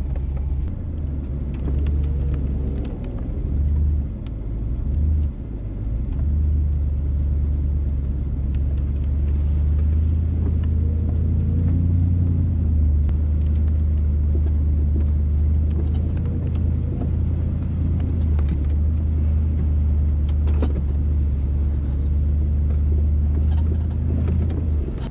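Low, steady rumble of a truck crawling along an off-road trail, heard from inside the cab, with scattered scrapes and snaps of underbrush dragging along the underside of the truck.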